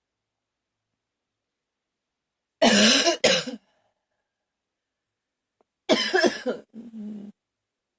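A woman coughing hard in a coughing fit: a quick double cough about two and a half seconds in, then a longer run of coughs about six seconds in that trails off more quietly.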